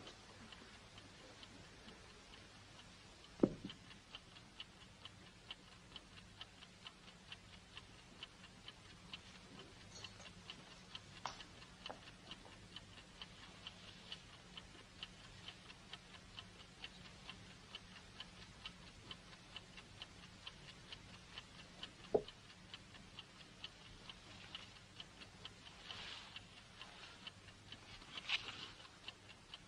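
Mechanical chess clock ticking steadily and faintly, with two sharp knocks, about three and a half seconds in and again a little past twenty-two seconds. Near the end, brief soft rustling of paper.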